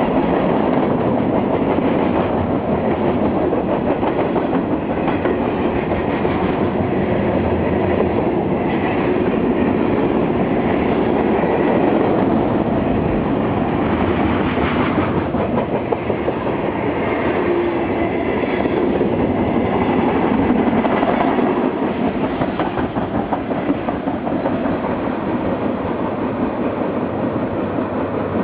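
Cars of a long mixed freight train rolling past, a steady loud rumble of wheels on the rails with an irregular clickety-clack of wheels over rail joints, easing slightly near the end.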